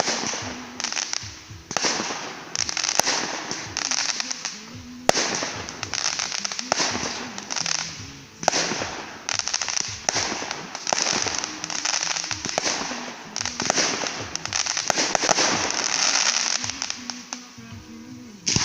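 Fireworks display: waves of crackling bursts follow one another every second or so, with sharp bangs now and then. The loudest bang comes about five seconds in.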